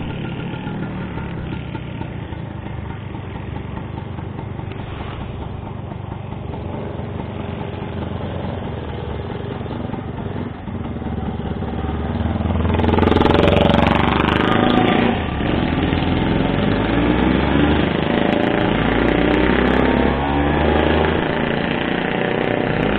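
Motorcycle engines running on the move. About halfway through the sound gets louder as a chopper-style motorcycle passes close, its engine rising and falling in pitch.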